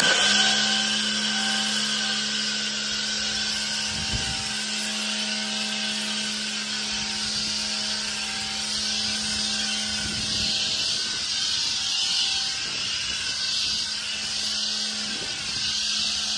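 Greenworks Pro 3000 PSI electric pressure washer spraying soap through a foam cannon: a loud, steady hiss of spray over the steady hum of its brushless motor and pump, kicking in abruptly as the trigger is pulled.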